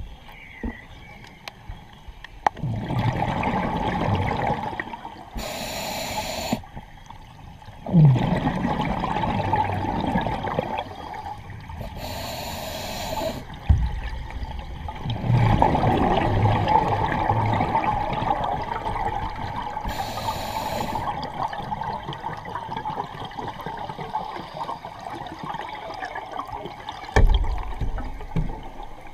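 Scuba diver breathing through a regulator underwater: three long exhalations of rumbling, gurgling bubbles, each followed by a short, sharp hiss of inhalation.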